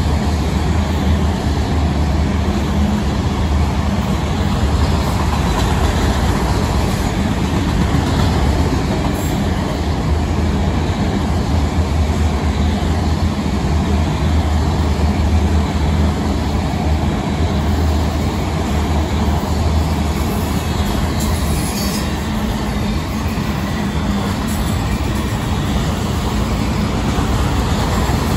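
CSX freight train's cars, mostly autoracks, rolling steadily past, their wheels rumbling on the rails.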